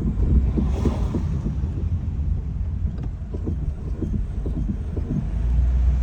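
Rapid knocking, about four knocks a second, from a third-generation Honda Fit coasting with the throttle and brake released, over steady road and tyre rumble; the knocking stops about five seconds in. The knock comes only on the overrun and goes away under braking.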